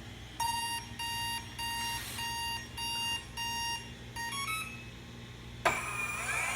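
Electric skateboard electronics powering up as the loop key is plugged in: about six even, evenly spaced beeps, then a quick three-step rising tone. Near the end a sudden whine rises in pitch and then holds steady.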